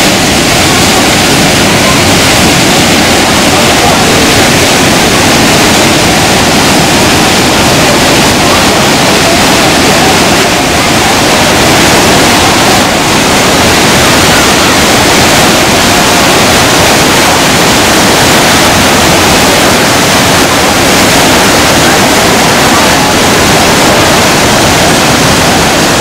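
Large waterfall pouring into its plunge pool: a loud, steady rush of falling water that does not let up.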